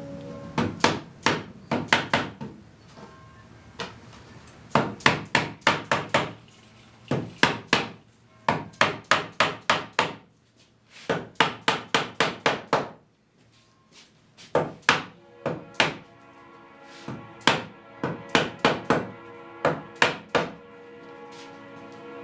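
Hammer blows on wood in quick runs of several strikes, about three or four a second, with short pauses between runs: the brace spindles of a Windsor chair being driven down into their holes.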